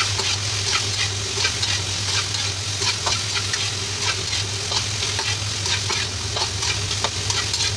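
Cut long beans stir-frying in hot oil in a wok: steady sizzling, with a metal spatula scraping and clicking against the pan over and over as it tosses them.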